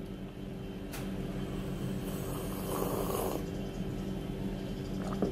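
Steady low machine hum of room tone, with a single click about a second in and a short hiss between two and three seconds in.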